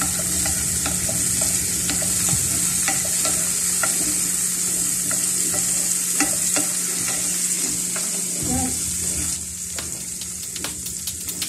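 Chopped onions and tomatoes sizzling in hot oil in a nonstick frying pan, with a wooden spoon stirring and tapping against the pan in short scrapes and clicks. The sizzle falls quieter about nine seconds in.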